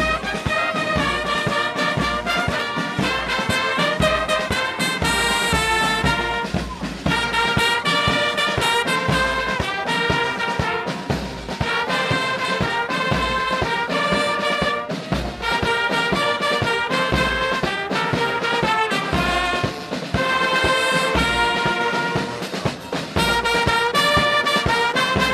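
Music led by brass instruments, playing a lively tune over a steady beat.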